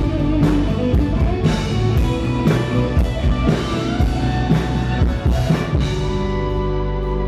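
Rock band music with drum kit and guitar and regular drum hits. About six seconds in, the drums stop and a held chord rings on.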